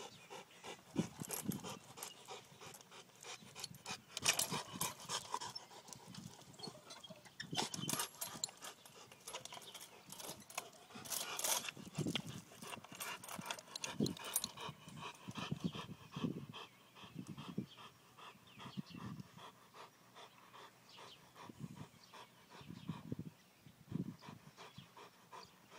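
Rottweiler panting hard as it bites and tugs at a plastic swing seat, with the metal swing chains clinking and rattling now and then.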